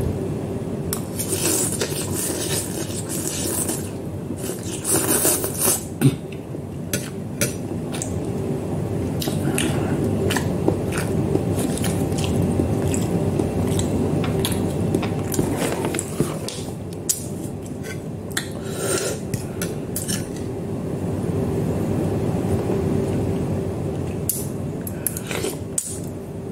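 Metal fork clicking and scraping against a bowl while instant noodles are eaten, many short clicks scattered through, over a steady low hum.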